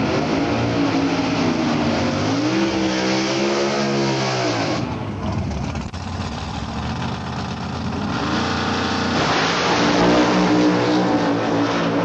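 Drag-race cars' V8 engines revving, the pitch rising and falling in blips. About two-thirds of the way in they open up to full throttle and get louder at the launch.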